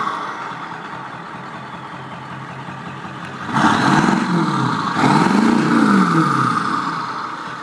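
Ford 7.3 L Powerstroke turbo-diesel with a Thruster 2 turbo upgrade and a 5-inch straight pipe, falling back to idle and then free-revved twice, about three and a half and five seconds in. Each rev rises and falls in pitch, and a high turbo whistle sounds with it before the engine drops back toward idle near the end.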